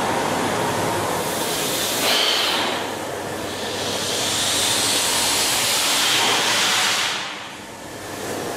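Beam pumping engine running: a steady rushing hiss that swells about two seconds in and again from about four to seven seconds, then dips near the end.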